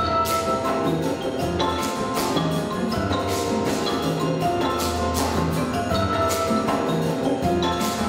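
A live instrumental ensemble plays Latin-style music. Marimbas carry the tune over a pulsing bass line and regular percussion strokes.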